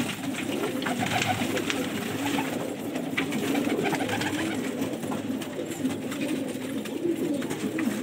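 Many domestic pigeons cooing together in a loft, their low, overlapping coos running on steadily, with a few light clicks among them.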